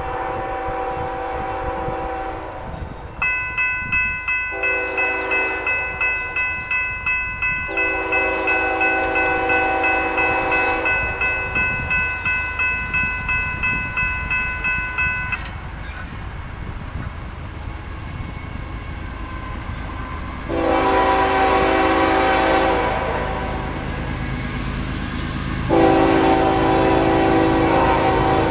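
An approaching diesel freight locomotive sounds its horn in a series of blasts: a long one, a short one and a long one, then, after a pause, two more long blasts. A bell rings about twice a second from a few seconds in until about halfway through. A low rumble of the locomotive's engine and wheels builds near the end as it draws close.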